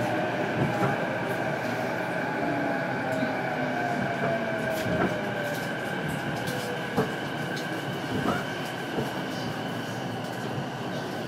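Running sound inside a JR East E233 series electric train's motor car: steady wheel-and-rail noise with scattered clicks, and a traction motor whine that falls steadily in pitch over the first seven seconds as the train slows.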